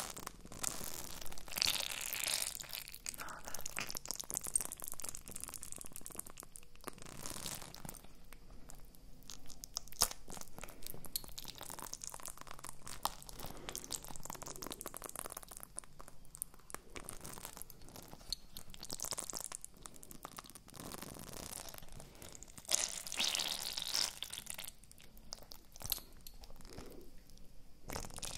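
Ice cubes in a flexible silicone honeycomb ice cube tray cracking and crackling as the tray is bent and squeezed, a dense run of irregular crackles and clicks. It grows louder about two seconds in and again a few seconds before the end.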